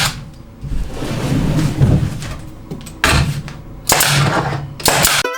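Sharp cracks of a nail gun firing into wood: one at the start, then three more about a second apart in the second half. Low, uneven handling noise comes in between, and mandolin music begins at the very end.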